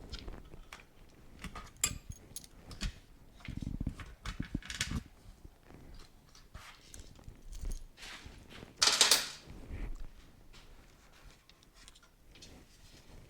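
Parts and tools being handled during a motorcycle teardown: scattered clicks and knocks, a few low thumps around four seconds in, and a brief louder scrape about nine seconds in.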